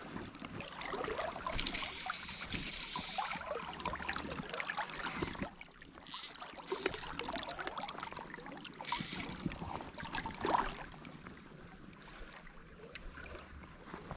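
Water sloshing and trickling, with scattered small knocks and rustles and a few brief swishes.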